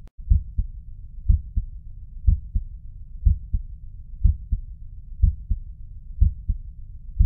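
Human heart sounds heard by auscultation: a regular lub-dub of first and second heart sounds, about one pair a second.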